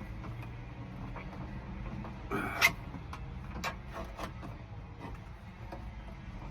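A metal hook tool probing inside a car door shell for the key-cylinder retaining clip: scattered light clicks and one short scrape ending in a sharp click about two and a half seconds in, over a faint steady low hum.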